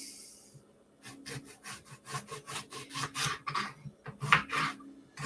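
Quick, rhythmic back-and-forth scraping strokes, about three to four a second, starting about a second in, like kitchen food being scraped or sawed on a surface. A brief hiss comes just before them.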